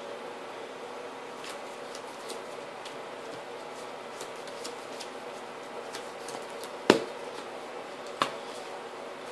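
Trading cards being handled and set down on a table, with scattered light clicks and two sharper snaps of a card about seven and eight seconds in, over a steady room hum.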